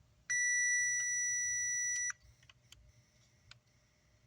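A single steady electronic beep, one pitch held for nearly two seconds and cut off cleanly, typical of a digital multimeter's continuity tester sounding as its probes bridge a connection. A few light clicks sit around it.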